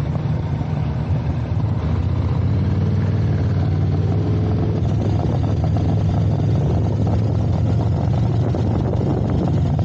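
Motorcycle riding along with its engine running steadily.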